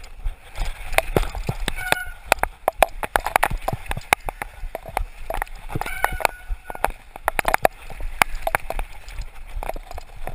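Mountain bike rattling and clattering over a rough dirt trail, with a dense, irregular run of knocks as it hits bumps and roots. A short high whine sounds briefly about two seconds in and again about six seconds in.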